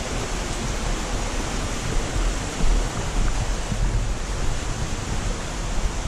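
Steady rushing of water from a nearby waterfall and stream, with an uneven low rumble underneath.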